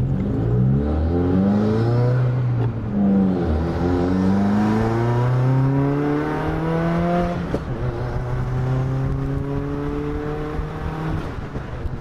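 Car engine, freshly fitted with a Cobb intake and tune, accelerating hard from a launch. The engine note climbs in pitch, drops back at gear changes about 3 and 7.5 seconds in, and eases off near the end.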